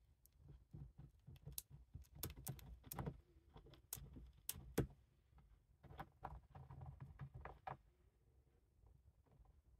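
Hamster gnawing a peanut in its shell: faint, irregular crisp clicks and crunches as its teeth work through the shell, thinning out about eight seconds in.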